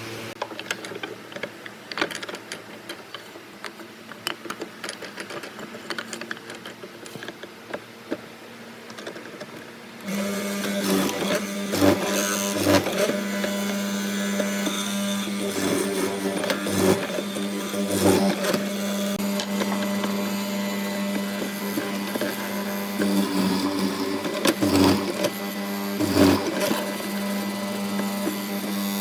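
Workshop tool sounds. For the first ten seconds there are quieter scattered clicks and taps. Then, about ten seconds in, a small electric power-tool motor starts and runs steadily at a constant pitch, with repeated knocks of wood being worked.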